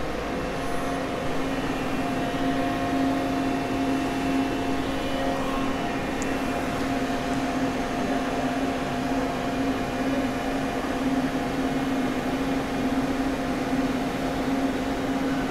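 Steady hum of a powered-up, idling Miyano BND-34S CNC lathe, its hydraulic pump motor running: a steady low tone with a fainter higher tone above it.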